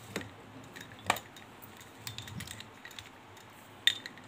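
A few sharp clicks and clinks as a battery jumper cable is handled, its metal clamp heads knocking about; the loudest click comes near the end.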